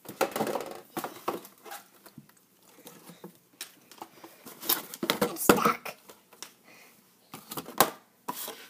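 Handling noise of plush toys and toy furniture being picked up and moved: scattered knocks, taps and rustles, the loudest knocks about five seconds in and near the end.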